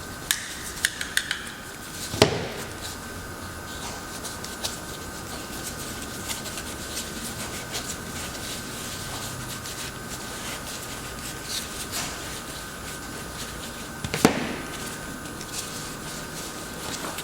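Objects being handled and set down on a work surface: a few light clicks, then a sharp knock about two seconds in, scattered small taps, and another sharp knock near the end, over a steady faint hum.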